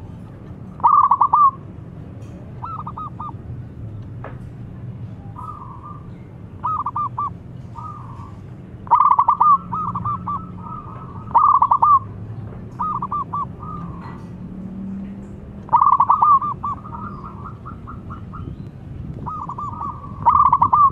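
Young zebra dove (perkutut) cooing. It calls in repeated phrases of quick staccato notes, about a dozen bursts, some run together into longer phrases, over a low steady hum.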